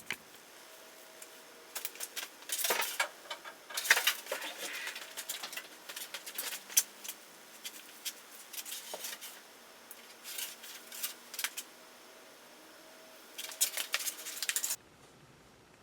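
Light clicks, rattles and rustling in irregular bursts: hands working with a wiring harness and small parts. The sounds stop abruptly near the end.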